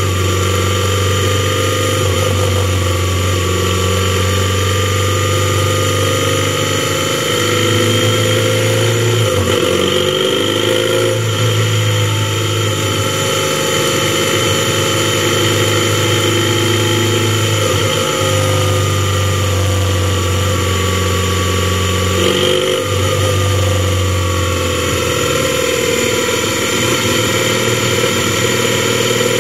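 Motorcycle engine running at road speed, heard from the rider's helmet, its note dropping and changing pitch a few times as the throttle and gears change, over a steady rush of wind and road noise.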